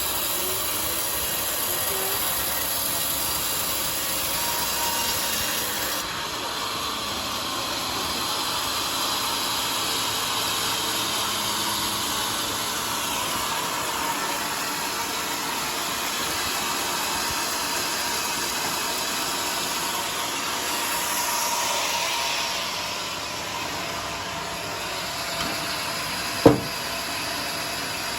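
Bandsaw sawmill running steadily through a teak log, a continuous hissing saw noise whose pitch drifts slowly as the cut goes on. One sharp knock sounds near the end.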